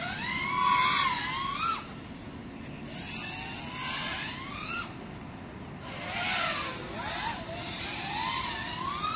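GEPRC Mark5 5-inch FPV quadcopter's brushless motors and propellers whining, the pitch swooping up and down with the throttle as it flies freestyle tricks. There are three surges of whine with short lulls between them.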